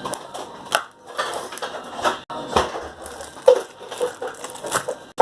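Slime being squeezed and pressed by hand, making a dense run of irregular clicks, pops and squelches, with a brief break about two seconds in.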